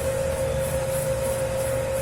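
Dough kneading machine mixing a 10 kg batch of pizza dough: a steady motor hum over a low rumble, with a soft hiss recurring about twice a second as the dough turns.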